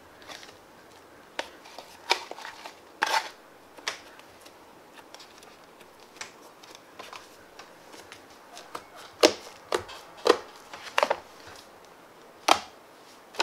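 Fluffy slime being scooped with a plastic spoon and pressed by hand, giving irregular sharp wet pops and squelches, more of them and louder in the second half.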